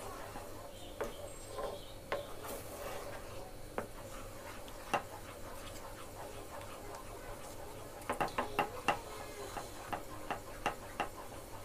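Spatula stirring a thick milk pudding mixture in a metal frying pan, scraping and now and then knocking against the pan. A quick run of taps comes about eight seconds in. The mixture is being cooked down until it thickens.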